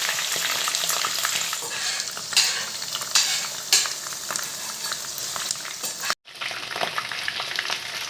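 Marinated chicken pieces deep-frying in hot oil, a dense crackling sizzle with three louder flare-ups a few seconds in. The sound cuts out for an instant about six seconds in, then the frying carries on.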